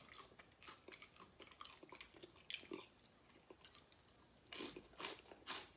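Faint chewing of crunchy tortilla chips with small wet mouth clicks, and a few louder clicks near the end.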